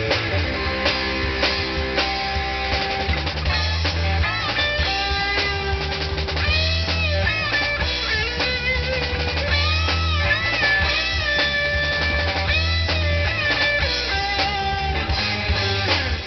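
Live rock band playing amplified: an electric guitar lead with bent, gliding notes over a drum kit and a heavy low end, with no vocals.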